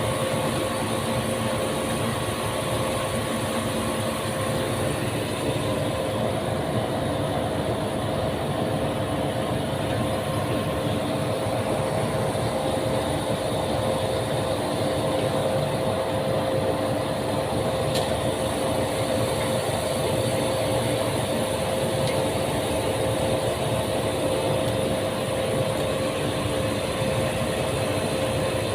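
A motor-driven machine running steadily with a constant hum that does not change.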